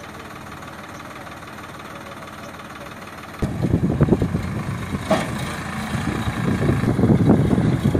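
Sonalika DI 47 RX tractor's diesel engine running steadily, then much louder and rougher from a sudden jump about three and a half seconds in, as the tractor pulls away with its emptied tipping trailer.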